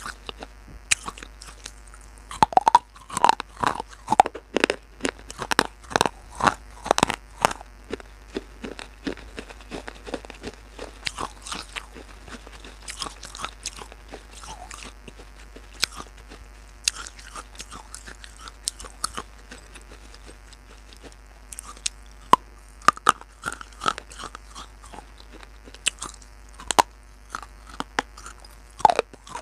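Close-miked crunching and chewing of baked clay pot pieces: sharp bites and grinding crunches, coming thick and fast at first, thinning out in the middle, then picking up again with fresh bites near the end.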